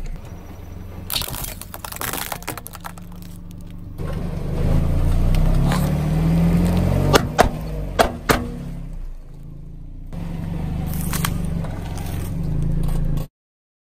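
A car creeping over objects with its engine running low. The tyre crushes plastic and inflatable items with crackling and scraping, and there are several sharp snaps about seven to eight seconds in. The sound cuts off suddenly near the end.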